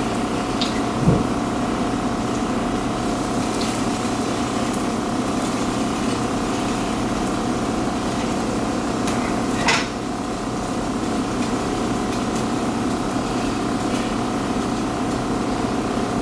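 A pancake frying in a frying pan under a steady hum. A spatula knocks against the pan about a second in and clicks or scrapes against it once near ten seconds in.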